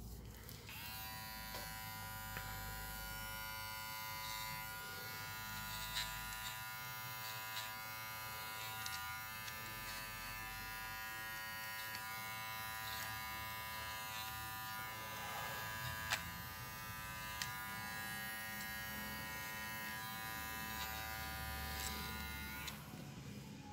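Small cordless pet finishing trimmer running steadily with an even buzz as it clips the hair on a poodle's paw; it switches on about a second in and off near the end.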